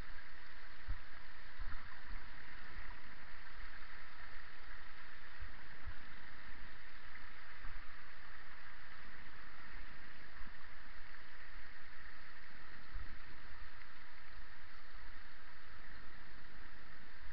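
Steady rushing noise with scattered dull knocks from a bicycle rolling slowly down a rocky, wet stream-bed track.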